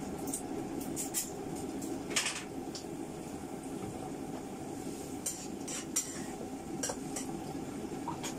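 A metal utensil clinking and scraping against a cooking pan about eight times, with one longer, louder scrape about two seconds in, over a steady low hum.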